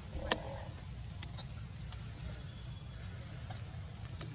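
Steady high-pitched insect drone with a low rumble underneath, broken by a few sharp clicks, the loudest about a third of a second in.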